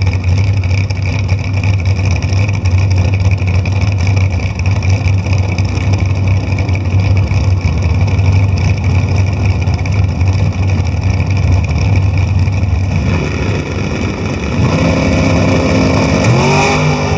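Dragster engine running loudly at the starting line, a steady low drone. In the last few seconds the engine note climbs in pitch in steps as it is brought up on the revs.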